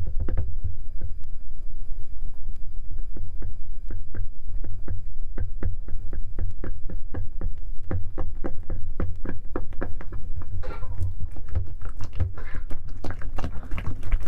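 Homemade clear water slime being squeezed and worked by hand, making quick sticky clicks several times a second. Longer wet squelches come in the last few seconds. A steady low rumble runs underneath.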